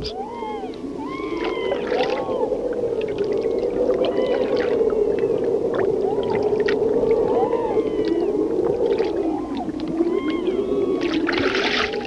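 Harp seal calls, like an underwater recording: a steady wavering warble with many short, arching chirps over it. Near the end a brief rushing noise cuts in.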